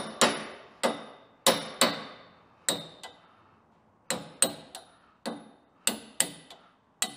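Hammer striking metal about a dozen times in uneven groups of two or three, each blow ringing briefly, driving worn-out nylon suspension bushings out of a trailer's tandem-axle suspension.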